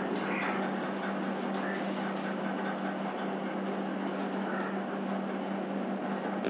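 Hand squeezing and mixing a thick spiced flour batter in a stainless steel bowl, with soft wet squelching, over a steady low electrical or fan hum.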